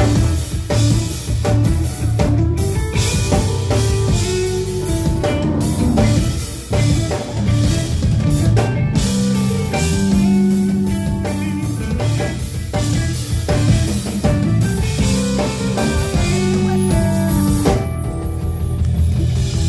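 A live band playing, with electric guitar and drum kit.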